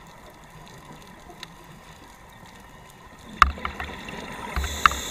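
Underwater scuba recording: after a quiet stretch, a few sharp clicks and low thumps come, then a diver's exhaled regulator bubbles rush near the end.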